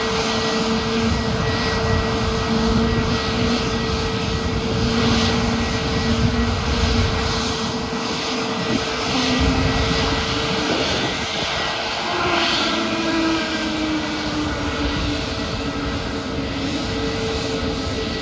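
Jet aircraft engines running with a steady, dense noise and held whining tones; from about twelve seconds in, one tone slides gradually lower in pitch.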